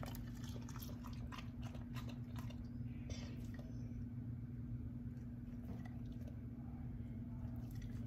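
Golden retriever chewing a small piece of chicken breast, wet clicks and smacks for about the first three seconds, then stopping. A steady low hum runs underneath.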